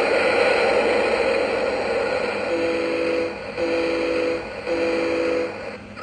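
Lighthouse figurine's sound chip playing recorded ocean sounds through a small speaker: a wash of surf, then about halfway through three foghorn blasts. Each blast is a steady low two-tone horn note just under a second long, with short gaps between them.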